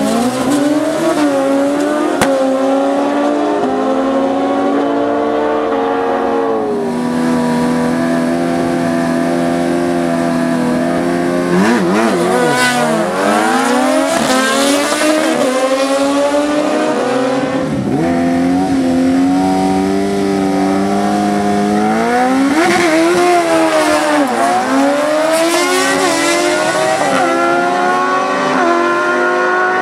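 Racing engines revving hard, several engines' tones overlapping; the pitch swoops down and climbs back up several times, then holds high between the swoops.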